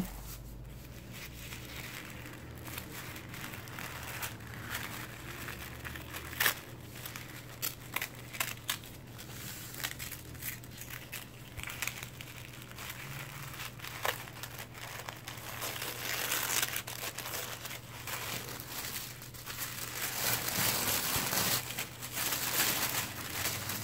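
Paper wrapping rustling and crinkling as it is unfolded and handled by hand, in scattered crackles that grow denser and louder in the last few seconds.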